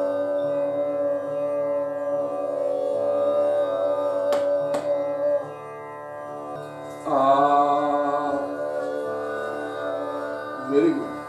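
A student singing long held vowel notes in a vocal-onset exercise over a steady instrumental drone: the first note ends about halfway through, and a new note starts cleanly about seven seconds in and is held. Two sharp clicks come just before the first note ends, and a man's voice speaks briefly at the very end.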